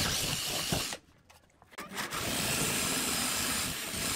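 Handheld power drill boring a twist bit into wood, running steadily. It stops for under a second about a second in, then drills again.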